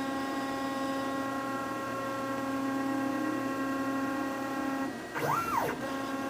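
Stepper motors of a DIY CNC router creeping the axes slowly through an automatic center-finding probe cycle: a steady whine of several pitches. About five seconds in the whine breaks off for a moment while one tone rises and falls in pitch, as on a short quicker move, then the steady whine resumes.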